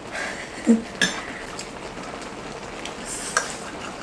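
Table eating sounds: chopsticks and spoons clicking against bowls and an electric hot pot pan of seafood, with sharp clicks about a second in and near the end. A short vocal sound just under a second in is the loudest event, and a brief hiss comes about three seconds in.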